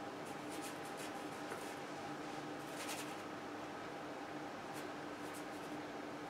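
Paintbrush working oil paint on a canvas: a few faint, short, scratchy strokes, with a steady faint hum underneath.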